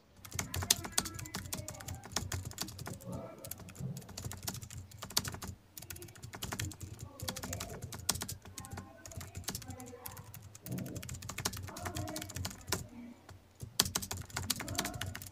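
Keys of a handheld scientific calculator clicking under quick presses, in runs broken by short pauses, as a calculation is keyed in.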